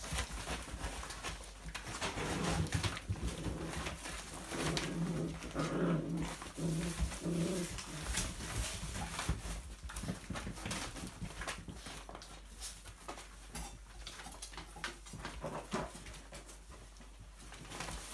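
Seven-week-old puppies playing rough: short low play growls in a run of bursts a few seconds in, over steady clicking and scrabbling of claws on a wooden floor and rustling as they tug at a plastic bag.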